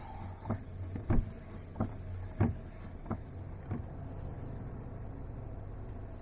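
Car cabin with a steady low engine and road drone while driving. Over the first four seconds there is a run of evenly spaced clicks or knocks, about every two-thirds of a second, that fade out.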